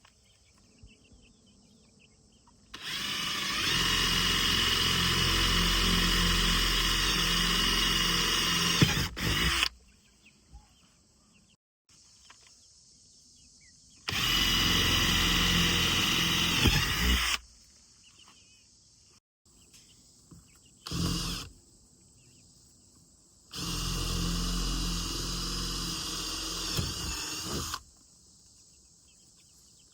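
Power drill running in bursts, drilling holes for the marked-out door opening: a run of about seven seconds, a three-second run, a brief burst, then a four-second run, with quiet between.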